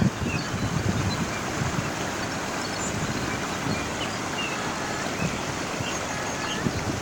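Waterfall rushing in a steady, even roar, with wind thumping on the microphone at the very start.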